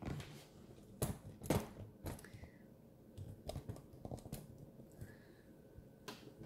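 Scattered light clicks and taps from a Brother ScanNCut cutting machine: its blade holder being clicked into the carriage and fingers tapping its touchscreen.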